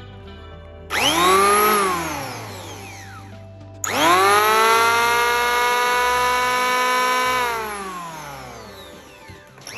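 Okatz electric hand planer's motor and cutter drum running free, not cutting: switched on briefly about a second in, winding up to a high whine and straight back down, then switched on again a few seconds later, holding steady speed for about three seconds and coasting down when the trigger is let go.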